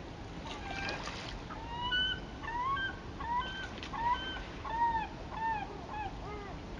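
A waterbird calling offscreen: a run of about a dozen short notes, about two a second, each rising and then falling in pitch. The calls start about two seconds in and stop shortly before the end.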